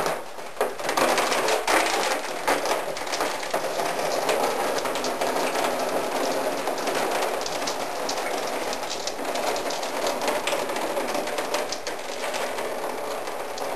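Steady hissing with dense crackling as a wooden canoe stem is steamed and bent around a bending form.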